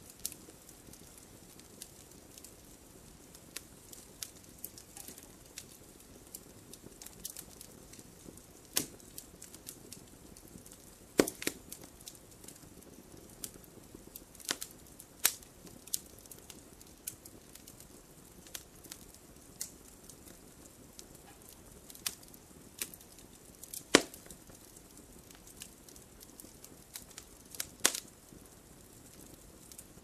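Campfire crackling: irregular sharp pops and snaps over a soft steady hiss, a few snaps much louder than the rest.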